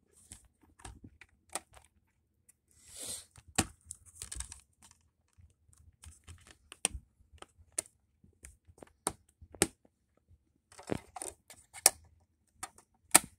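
Plastic DVD case being handled and opened, and the disc taken off its hub and set into a portable DVD player: a string of sharp plastic clicks and snaps, with a short rustle about three seconds in.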